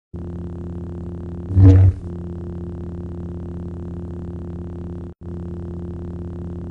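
Lightsaber sound effect: a steady low electric hum that starts abruptly, with one short, louder burst about a second and a half in. The hum cuts out for an instant about five seconds in.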